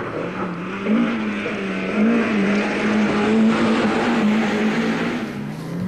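Lada rally car's 1600 cc engine running at high revs, its pitch wavering up and down, dipping and climbing again near the end, over a steady rushing noise.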